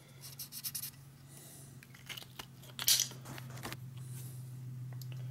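Steady low machine hum with light scraping and rubbing of a tool and aluminium chips on the machined aluminium cylinder head, and one sharp clack about three seconds in.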